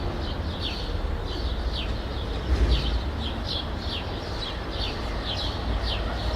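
Residential street ambience: a bird chirping over and over in short high notes that drop in pitch, two or three a second, over a steady low rumble of distant traffic.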